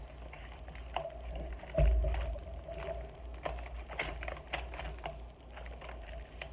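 Paper pages of a thick handmade junk journal being turned by hand: a run of light paper rustles and taps, with a louder low thump about two seconds in as the book is handled.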